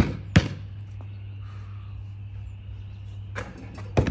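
A basketball bouncing twice on a concrete driveway near the start, over a steady low hum. Several lighter knocks come near the end.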